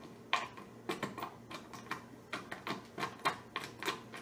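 A dozen or so irregular light clicks and taps of wood screws being handled and set by hand into the boards of a wooden frame, about three a second.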